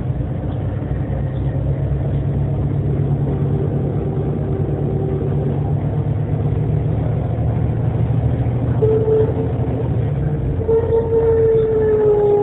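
Differential of vehicle 30941 whining over the steady drone of its drivetrain while it runs, the sign of a bad diff. About nine seconds in, the whine grows louder and then slides slowly down in pitch.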